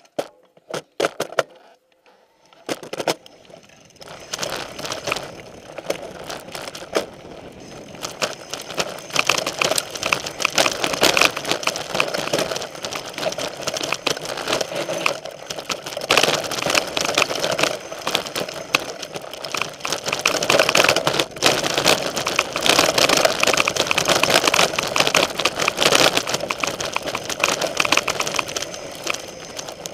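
Specialized Stumpjumper mountain bike riding down a dirt trail: its knobby tyres rolling over dirt and gravel and the bike rattling over the bumps, heard close up from a camera mounted on the bike. A few sharp clicks come in the first seconds, then a continuous dense rattle that gets louder about eight seconds in.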